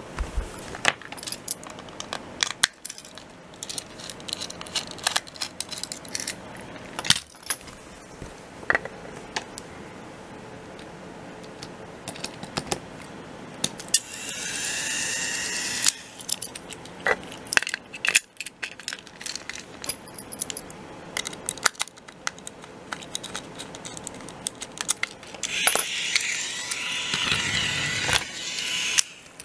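Plastic clicks and clatter of a Plarail toy train being handled, with the small battery motor of the powered car whirring as its wheels spin, briefly about halfway through and again for a few seconds near the end.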